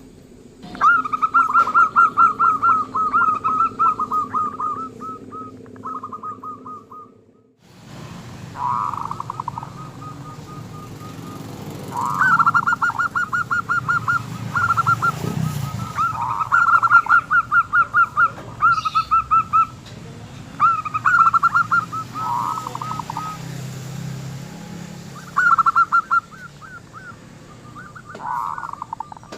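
Zebra dove (local perkutut) cooing: repeated phrases of rapid staccato coos, one after another. There is a brief dropout about seven seconds in.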